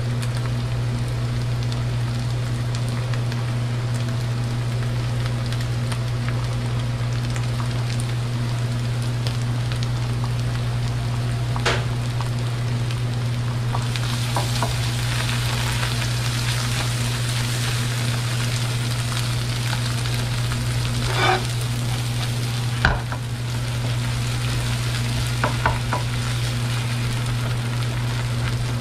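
Garlic and cilantro in butter sizzling steadily in a nonstick frying pan as they are stirred with a spatula, with a few short clacks of the spatula against the pan. The sizzle gets louder about halfway through, and a steady low hum runs underneath.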